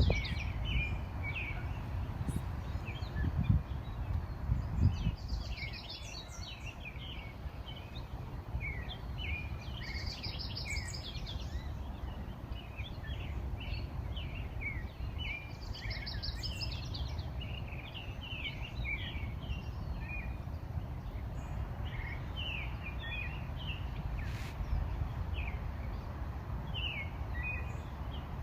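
Several songbirds chirping steadily, with one song, a fast trilled phrase, repeating every five or six seconds. A steady low rumble lies beneath.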